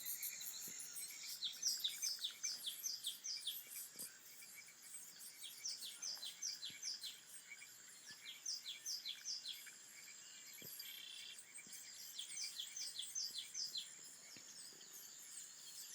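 Small birds chirping from a cat-entertainment DVD soundtrack played on a laptop: runs of short, quick, falling chirps, several a second, with brief pauses between runs.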